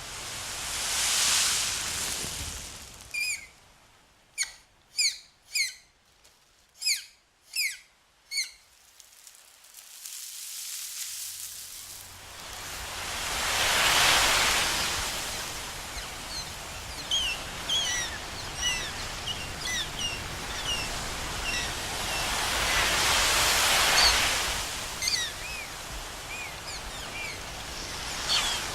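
Sea waves swelling and washing in three times, about ten seconds apart. Birds call over them: a run of about seven sharp calls between the first two waves, then many short chirps through the rest.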